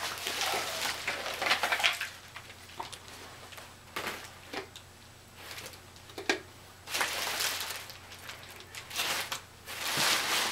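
Packaging rustling and crinkling in irregular bursts, with a few sharp clicks and knocks as items are handled.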